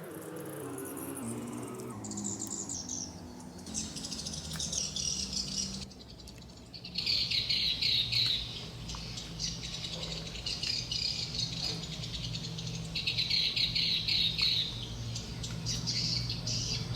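Close-up chewing of baked brownies with a nut topping: repeated runs of crisp crackling, each lasting a second or two.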